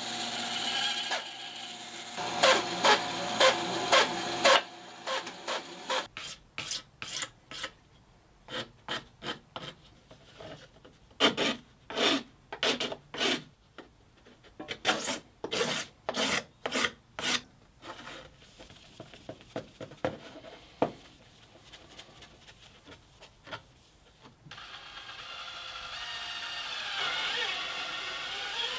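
A band saw runs through a cut in 3-inch PVC pipe for the first few seconds. Then a hand file rasps along the cut PVC edge in many short strokes, in runs with pauses. About three-quarters of the way through, a cordless drill starts running and gets louder toward the end.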